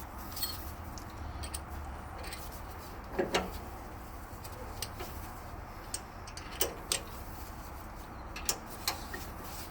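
Scattered short, sharp metallic clicks and taps, several coming in quick pairs, from hand tools working on a rear brake caliper to free it. A low steady hum runs underneath.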